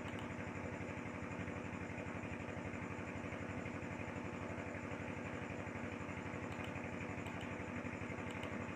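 A steady, low-level background hum with a fast, even flutter, like a small motor or fan running, and no other events.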